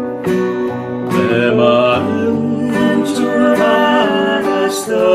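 Two acoustic guitars playing a slow song, with a man and a woman singing together from about a second in.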